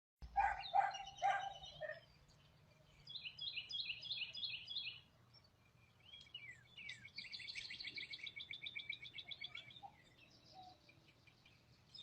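Songbirds calling outdoors: three short calls, then a quick series of high chirps at about four a second, then a long fast trill, over a faint steady hum.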